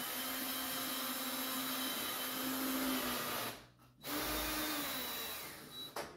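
A handheld power tool's motor running in two bursts, a long one of about three and a half seconds and, after a short pause, a shorter one, each with a steady whine over a loud hiss; a sharp click follows near the end.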